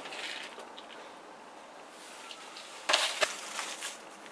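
Quiet room tone for about three seconds, then glossy magazines rustling and being handled, with a sharp click in the middle, as one magazine is put down and another picked up.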